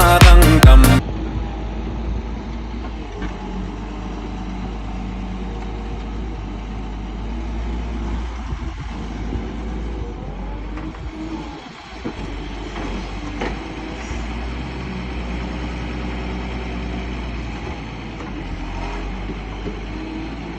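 Volvo 145 hydraulic excavator's diesel engine running steadily with a low rumble while it digs soil. Loud music plays briefly at the start and cuts off about a second in.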